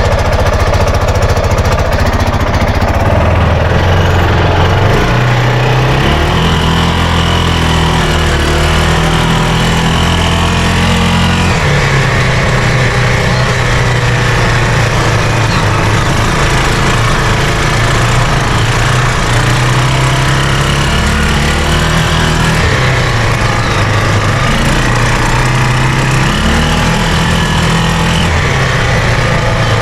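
Arctic Cat Prowler 500 side-by-side engine running steadily, its speed stepping up and down several times.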